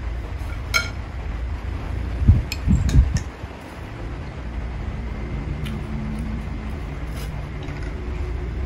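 Cutlery clinking against a bowl while eating noodles: one ringing clink about a second in, then a few dull knocks and small ticks, over a steady low rumble.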